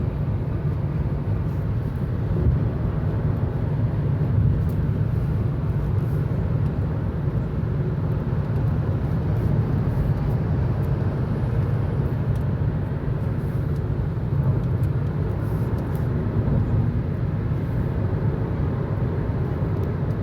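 Steady road and wind noise inside a car's cabin at highway speed of about 85 mph, a constant low rumble with no change.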